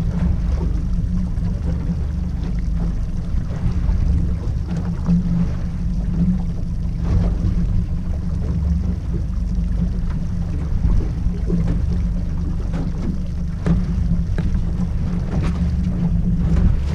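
Boat's outboard motor running with a steady low drone, with wind on the microphone.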